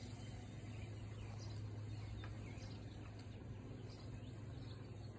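Faint outdoor background: a steady low hum with a few faint bird chirps.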